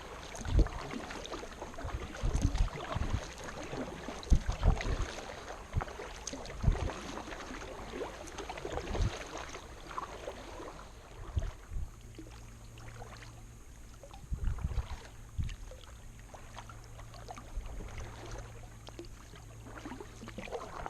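Kayak paddle strokes: water splashing and dripping off the blades, with irregular low knocks against the plastic hull of a Sun Dolphin Excursion 12 SS sit-in kayak. A low steady hum comes in about halfway through.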